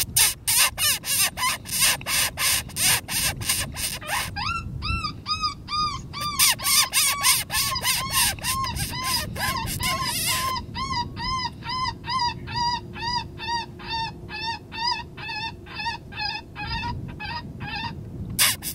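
Predator call sounding a distress cry to bring in a coyote: rapid raspy pulses, about three or four a second, give way after about four seconds to a long run of short rising-and-falling squeals, about three a second, and the raspy pulses return near the end.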